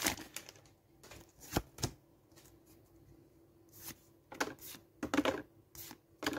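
Pokémon trading cards being slid one at a time from the front of a small stack to the back, giving short papery flicks and snaps: two about a second and a half in, then a quick run of them from about four seconds on.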